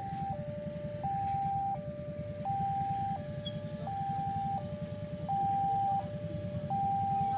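Automatic railway level-crossing warning siren sounding, a two-tone electronic alarm switching steadily between a higher and a lower pitch about every 0.7 seconds, signalling that a train is approaching. A low engine-like rumble runs underneath.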